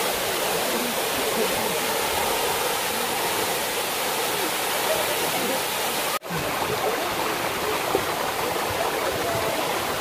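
Waterfall pouring into a rocky plunge pool, with stream water cascading over the boulders below it: a steady rush of falling water. It cuts out for an instant about six seconds in.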